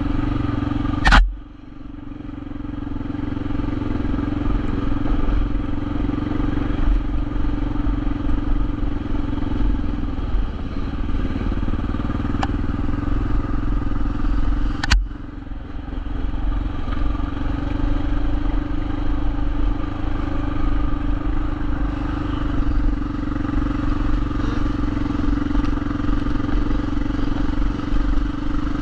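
Motorcycle running steadily while being ridden, its engine hum under heavy wind rumble on the microphone, with two sharp cracks, about a second in and midway through.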